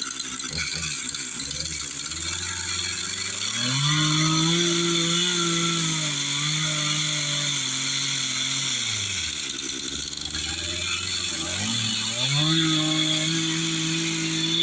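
Chainsaw engine idling, then revved up and held for about five seconds, dropping back to idle, and revved up again near the end, as the saw works on the wood carving.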